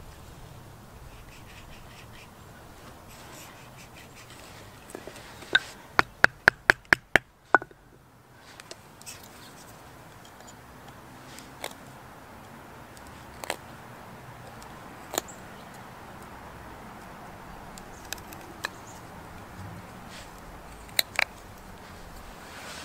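LionSTEEL knife whittling green wood: crisp clicks of the blade slicing off shavings. A quick run of about eight cuts comes some five seconds in, then single cuts every second or two, with a close pair near the end.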